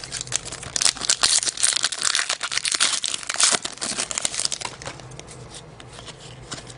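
Foil wrapper of a 2011-12 Upper Deck Series Two hockey card pack being torn open and crinkled, a dense crackling that is loudest for the first few seconds, then lighter, sparser rustling.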